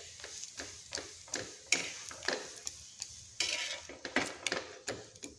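Metal spatula scraping and tapping on an iron tawa as a ghee-coated paratha is turned over and pressed, in a string of irregular short clicks and scrapes, with faint sizzling of the ghee on the hot griddle.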